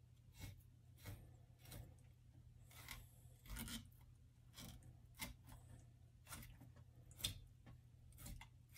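Knife slicing along a brook trout's rib cage on a plastic cutting board: a series of faint short scrapes and crunches, about one or two a second, as the blade follows the ribs down.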